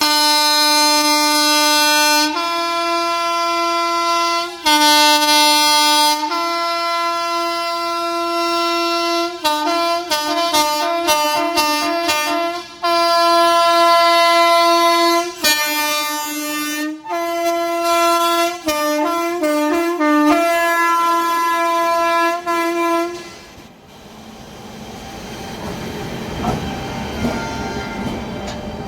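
Electric locomotive air horns sounding at a station, switching between a lower and a higher pitch: long blasts first, then rapid runs of short toots around 10 to 12 s and again around 17 to 20 s, with a long blast between. The horns stop at about 23 s, and a rising rumble of the train rolling takes over.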